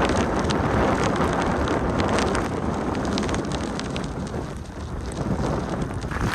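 Typhoon wind buffeting the microphone in a dense, steady rush, with many sharp ticks of wind-blown spray hitting. The gust eases briefly about three-quarters of the way through, then builds again.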